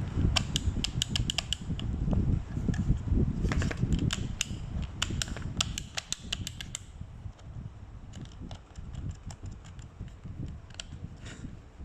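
Car power window switch being worked back and forth by hand: quick runs of sharp plastic clicks for about seven seconds, then a few fainter ones. Its action is still not very smooth after the worn plastic part was filed down.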